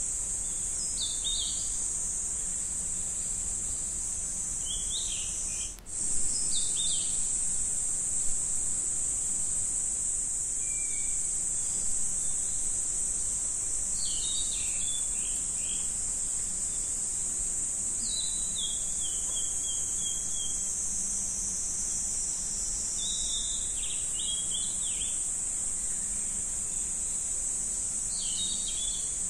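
Steady high-pitched insect-like drone with short chirping calls every few seconds, like birds outside.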